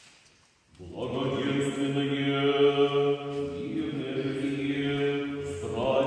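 Orthodox liturgical chant sung in long held notes, starting about a second in and changing pitch a couple of times.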